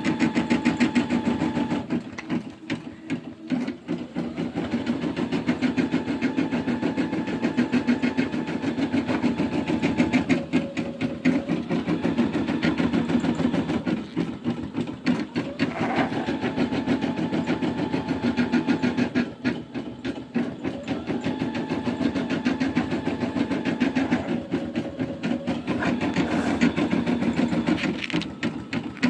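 Brother Innov-is M280D embroidery machine stitching out a design: a fast, steady needle rhythm that briefly dips and slows several times.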